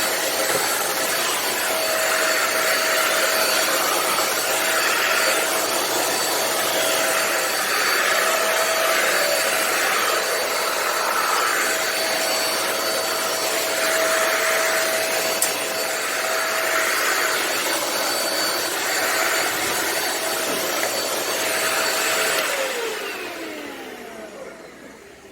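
Deerma DX700S corded vacuum cleaner running with a steady airy rush and a high whine, the rushing swelling and fading every few seconds. About 22 seconds in it is switched off and the motor winds down, its whine falling in pitch as it goes quiet.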